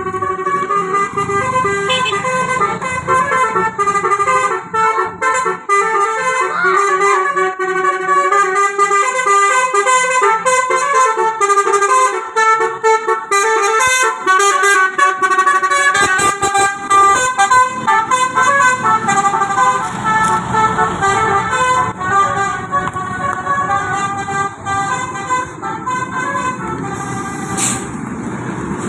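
Basuri telolet bus horn, a multi-trumpet musical air horn, playing a tune of quickly changing notes. The notes stop shortly before the end, giving way to vehicle noise.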